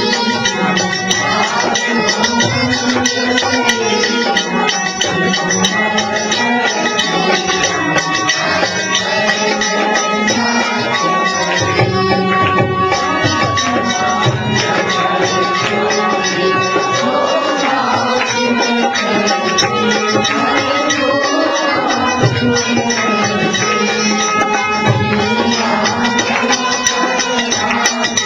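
An arti, a Hindu devotional hymn, sung to an accompaniment with percussion.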